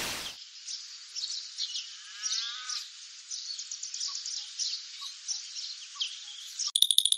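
Birds chirping over a steady hiss of insects, a country ambience track. A whoosh dies away at the start, and near the end a phone begins ringing with a fast electronic trill.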